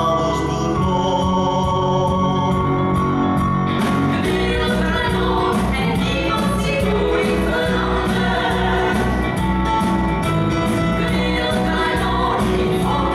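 Musical theatre cast singing together as a choir over band accompaniment, holding long notes; a steady drum beat with bright percussion comes in about four seconds in.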